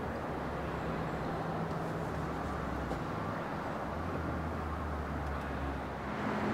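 2014 SRT Viper GTS's 8.4-litre V10 idling steadily, a low even drone, with a small shift in its tone near the end.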